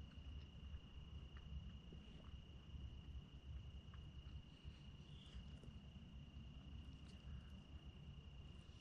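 Near silence outdoors, with a faint, steady, high-pitched insect trill, most likely a cricket, over a low rumble.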